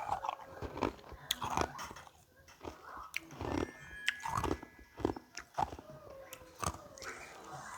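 Carbonated ice being bitten and crunched between the teeth close to the microphone, in a run of sharp, irregular crunches about every half second.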